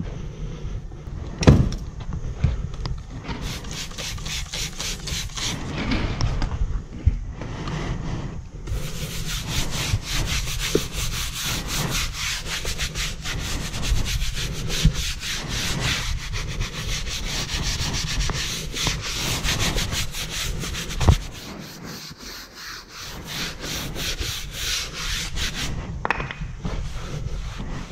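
Close rubbing and scrubbing strokes by hand during car detailing, with sharp knocks about a second and a half in and again about twenty-one seconds in.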